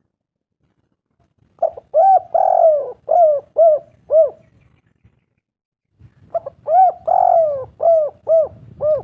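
Spotted dove cooing: two phrases about two seconds apart, each a run of about six short arched coos with one longer drawn-out coo in the middle.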